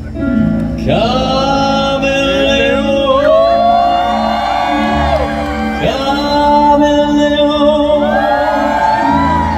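Live band music, the opening of a pop song: a lead melody with bending, sliding notes over a steady low backing, played loud through a stage PA.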